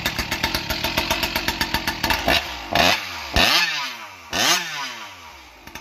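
Ported Stihl chainsaw with a CPI expansion pipe running at full throttle while cutting through a spruce log. From about two seconds in, the engine's revs dip and climb back sharply three times, then drop lower near the end.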